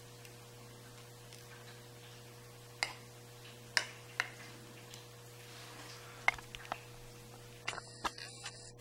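Scattered light clicks and taps of small metal parts of a disassembled padlock (pin-tumbler pins and springs) being handled, about eight in all, several of them bunched together near the end.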